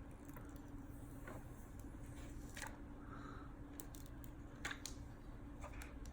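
Faint handling of the plastic protective wrap on a new phone: a few scattered soft clicks and crinkles over a low steady hum.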